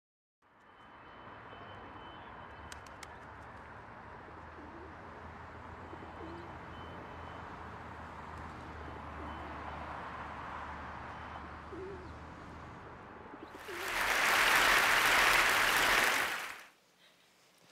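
Faint steady background noise, then about three seconds of loud audience applause that cuts off abruptly.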